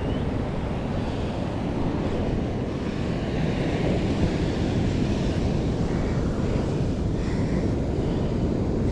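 Ocean surf breaking and washing on the beach, with wind buffeting the microphone: a steady, even rush of noise heavy in the low end.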